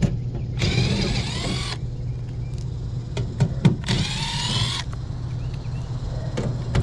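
Cordless drill/driver running in two short bursts on the screws of a packaged air-conditioning unit's sheet-metal panel, its motor whine sliding in pitch with each burst.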